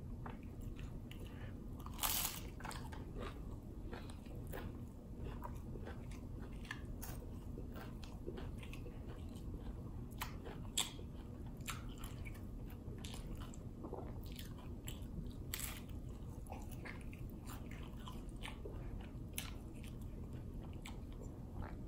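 Close-up eating sounds of a man biting and chewing crunchy hard-shell tacos: scattered soft crunches of the shell, with a louder crunch about two seconds in.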